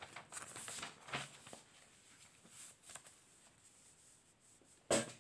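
Paper notebook pages rustling as they are turned over, a run of short crisp rustles in the first second and a half, then quiet. About five seconds in comes one short, sharp, louder rustle or knock.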